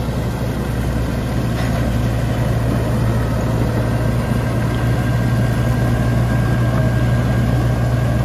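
John Deere 5210 tractor's three-cylinder diesel engine running steadily under load while driving a straw reaper, the reaper's machinery running along with it. The steady sound gradually grows a little louder.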